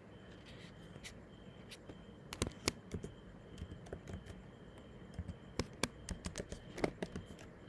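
Typing on a computer keyboard: irregular key clicks in short runs, starting about two seconds in and getting busier toward the end, over a faint steady high whine.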